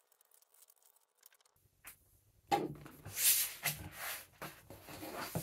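Near silence, then from about halfway through, the pages of a thick paper instruction booklet rustling and flipping as it is riffled and handled.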